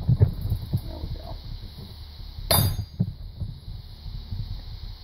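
Steel parts of a hydraulic knockout-punch press setup being handled. A few light knocks are followed, about two and a half seconds in, by a sharp metallic clink with brief ringing, all over a low steady hum.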